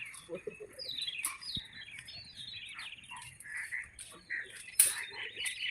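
Small birds chirping repeatedly in short rising and falling calls, with a few sharp clicks, the loudest about five seconds in.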